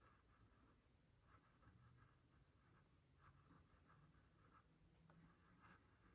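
Faint scratching of a pen drawing on sketchbook paper: short, quick strokes in little clusters, with brief pauses between them.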